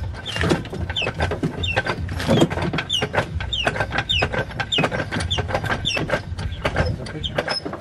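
Clicks, knocks and rattles of front suspension parts being shifted by hand while a coilover strut is lined up with the spindle, with a string of short, falling high-pitched squeaks about twice a second.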